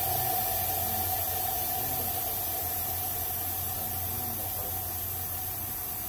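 Steady hissing noise that slowly fades, with a steady hum under it.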